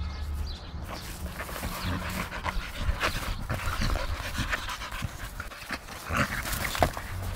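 Dogs panting as they play, with irregular scuffs and knocks; the sharpest knock comes near the end.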